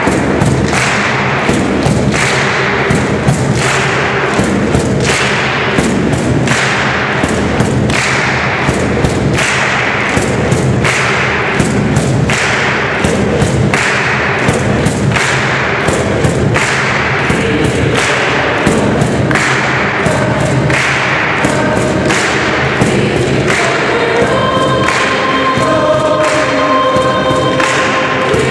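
Mixed choir singing a gospel song over a steady beat of hand claps and cajón hits. In the last few seconds the voices hold long notes.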